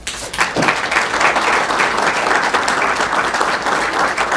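Audience applauding: many people clapping together, breaking out suddenly and holding steady.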